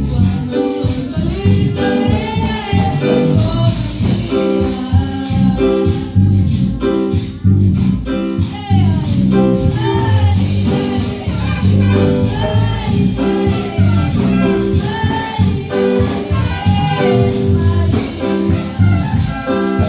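A woman singing a Spanish-language Christian praise song (alabanza) over a band accompaniment with a steady beat.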